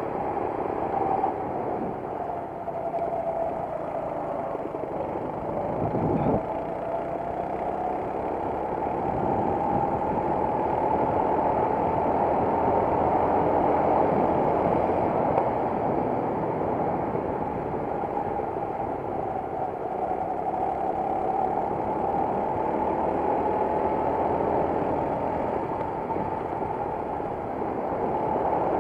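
Racing kart engine heard on board, its pitch falling as it slows and rising again as it accelerates along the track, with a short low knock about six seconds in.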